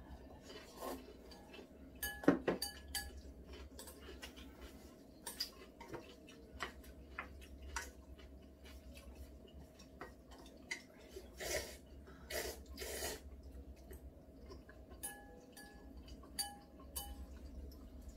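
Chopsticks and spoons clinking and tapping against ceramic bowls and a pan during a meal, in scattered light clicks with a louder cluster about two seconds in.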